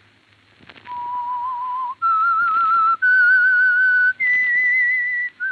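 A radio drama's signature theme whistled solo: long notes with a vibrato, each held about a second, stepping up four times and then dropping back near the end, after about a second of near silence.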